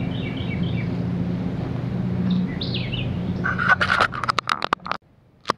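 A steady buzzing hum of honeybees around an open hive, with a bird chirping over it twice. About three and a half seconds in comes a quick run of clicks and knocks, then the sound cuts off to near quiet.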